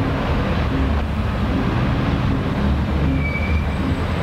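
Steady low rumble of a moving vehicle heard from inside, with a brief high squeal about three seconds in.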